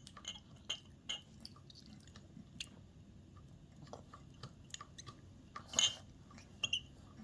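A baby chewing and smacking its lips on soft spoon-fed baby food: a string of small, quiet wet clicks and smacks, with one louder noise about three quarters of the way through.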